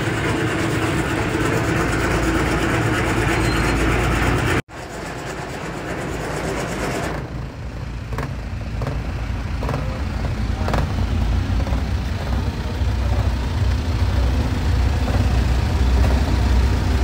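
Steady low rumble of a car ferry's engines with a loud hiss over it, cut by a sudden brief drop-out a few seconds in. After it the hiss is quieter, a few knocks stand out, and the low rumble grows toward the end.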